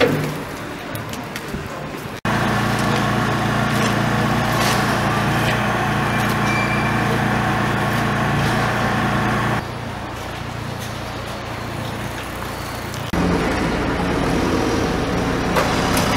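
Engine-driven site machinery running steadily with a low, even hum. The sound jumps in level about two seconds in, drops past the middle and rises again a few seconds later at cuts between shots.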